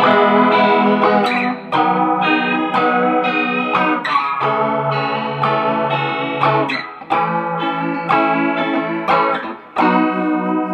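Squier Bullet Telecaster electric guitar on its middle pickup setting (neck and bridge pickups together), strumming ringing chords through a Roland Cube amp with chorus and reverb. A new chord is struck every two to three seconds.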